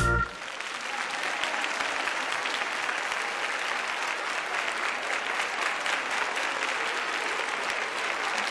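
A large audience applauding steadily. The last note of a song cuts off just as the clapping begins.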